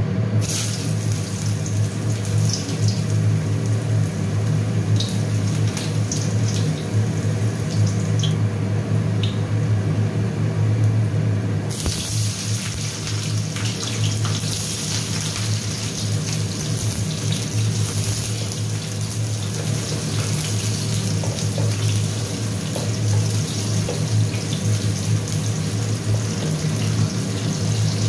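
Hot cooking oil sizzling in a wok as ginger and sliced onion fry, with a few short crackles early on. The sizzle grows much louder about twelve seconds in and stays so, over a steady low hum.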